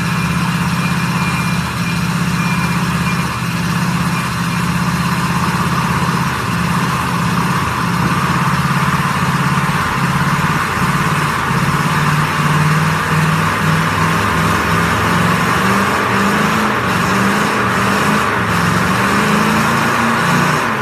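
Ford pickup doing a burnout: its engine is held at high revs while a rear tire spins and squeals. The revs waver and climb a little near the end.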